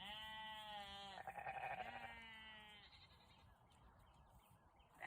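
Belted Galloway cattle mooing: one faint, drawn-out moo of about three seconds, rough in the middle, then quiet.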